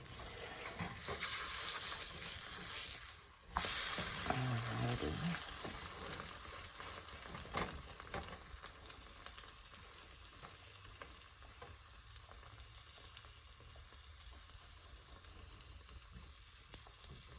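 Egg omelette sizzling in butter in a frying pan, a steady hiss that is louder for the first three seconds or so and fainter after that, with a couple of faint taps.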